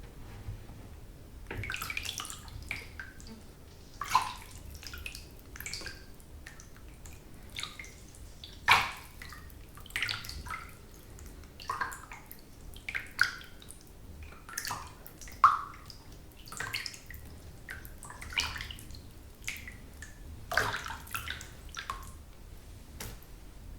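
Water in a bathtub being moved about by hand or body: irregular small splashes, sloshes and drips every second or so, a few of them louder, over a low steady rumble.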